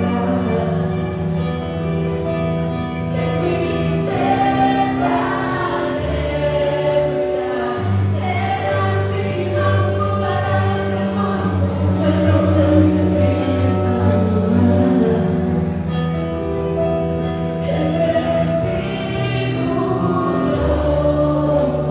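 Live acoustic band playing a song: keyboard, violin and other instruments, with a woman singing.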